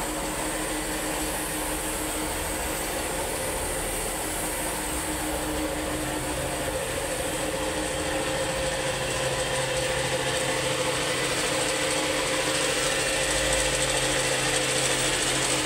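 Air compressor running steadily: a constant mechanical hum with hiss, a little louder from about halfway through.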